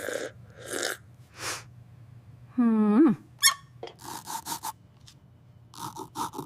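Shoe polishing: quick runs of rubbing strokes on the shoe, about four or five a second, coming twice in the second half. Before them come a few soft hissy breaths and a short squeaky sound that rises at its end, the loudest thing heard.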